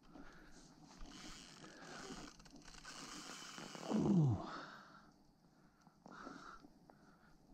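Handling and rustling noise as an angler plays a hooked barbel close in to the bank. About four seconds in there is one loud sound sliding sharply down in pitch.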